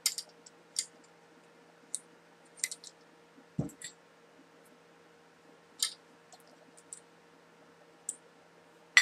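Clamps being loosened and taken off a freshly epoxied knife handle: scattered small clicks and knocks of metal and wood, with a duller knock about three and a half seconds in.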